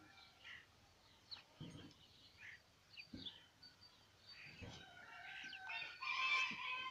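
A rooster crowing near the end, with small birds chirping and a few light knocks.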